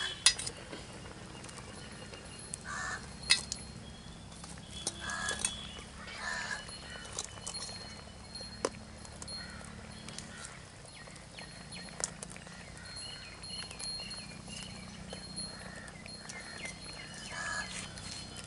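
Crab curry boiling in an aluminium pot, with a few sharp clinks as crab pieces and a steel bowl are handled. A crow caws a few times in the background.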